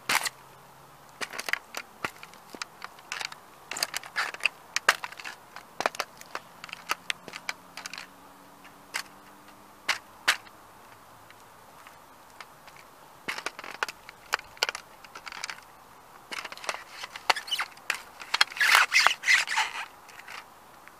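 Sneaker sole pressing down on a model Ferrari toy car, the car's body and parts creaking and cracking under the weight in scattered sharp clicks, with a dense run of loud cracking near the end.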